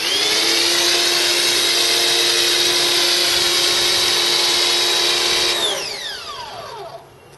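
Force 1800 electric pressure washer's motor and pump switching on with a click, quickly reaching speed and running with a steady high whine. After about five and a half seconds it shuts off and winds down, its pitch falling away.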